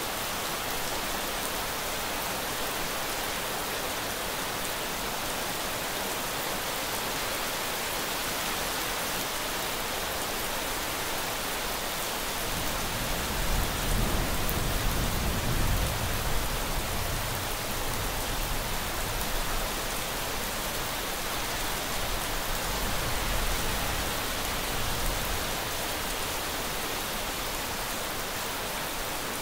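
Steady rain falling as a dense, even hiss. About twelve seconds in, a low rumble of thunder swells, peaks for a few seconds and rolls away gradually.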